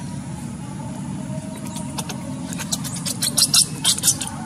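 A quick run of dry crackling and rustling, like a monkey scrabbling over dry leaves, louder in the second half, over a steady low background rumble.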